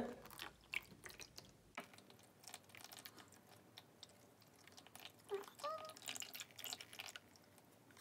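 Faint dripping of soapy water from the drain hose of a mini beauty-blender washing machine into a plastic tray, with scattered light clicks of the plastic machine being handled.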